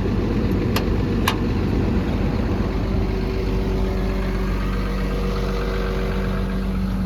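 Cummins diesel engine of an XCMG XE210CU excavator running steadily and smoothly, a sign of an engine in good health. Two sharp clicks about a second in.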